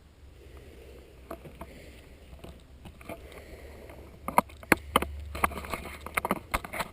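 Footsteps on a worn wooden floor strewn with debris: quiet shuffling at first, then from about four seconds in a run of sharp cracks, creaks and knocks as the boards and rubble take the weight.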